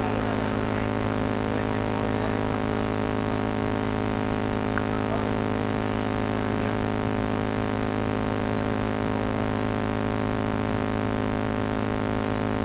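Steady electrical buzz with many overtones, unchanging in pitch and level: mains hum in the sound system or recording.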